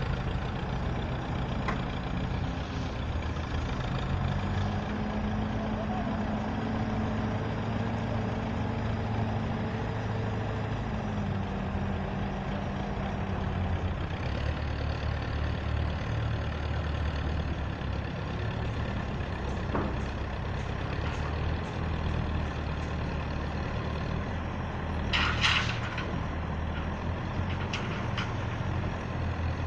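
Heavy construction machine's engine running steadily. It revs up and holds for several seconds, then settles back lower about halfway through. A short hiss comes near the end.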